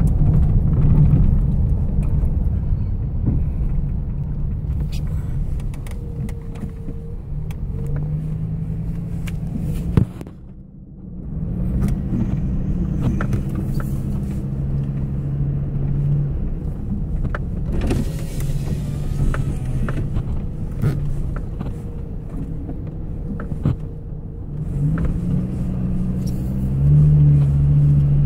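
A vehicle's engine and tyres on a dirt road, heard from inside the cab: a steady low engine hum with scattered small knocks and rattles. The sound drops away briefly about ten seconds in and gets louder near the end.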